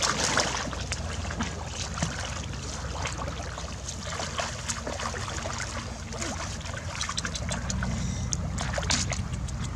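Shallow muddy paddy water splashing and sloshing in many small, irregular bursts as hands grope through it for fish, over a steady low rumble.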